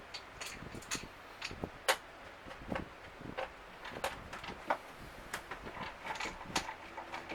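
Irregular clicks and knocks of plastic refrigerator interior parts being handled during disassembly, the sharpest about two seconds in.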